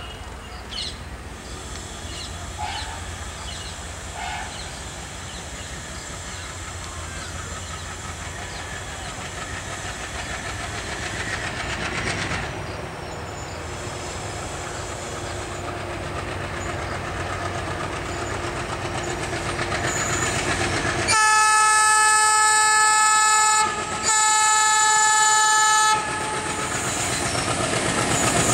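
Indian Railways WDM-3A diesel locomotive's ALCO 251 V16 engine working hard, notched up and accelerating, growing louder as it approaches. About two-thirds of the way through, the locomotive's horn sounds two long blasts with a brief break between them.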